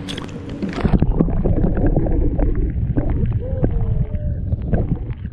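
A GoPro action camera plunged underwater: about a second in the sound turns muffled, with a loud low rumble of water rushing over the camera housing, scattered clicks and gurgling.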